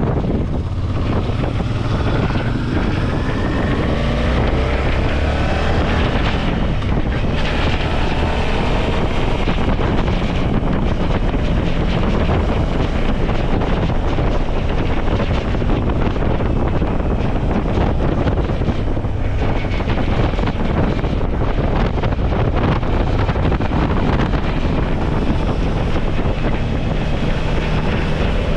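Suzuki V-Strom motorcycle riding along under heavy wind noise on the microphone. In the first several seconds the engine note rises again and again as it accelerates through the gears, then settles into steady cruising.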